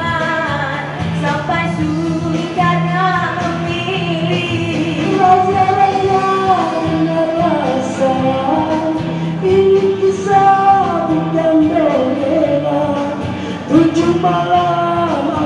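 A woman and a man singing a duet into microphones over amplified backing music. The woman sings at the start, and the man takes over in the second half.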